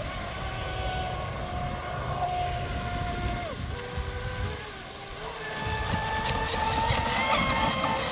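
A Pro Boat Sonic Wake RC boat's brushless electric motor whining as the boat speeds across the water, over a low rumble. A little past three seconds the whine drops in pitch as the throttle eases off. From about five and a half seconds it climbs and grows louder as the boat speeds up again.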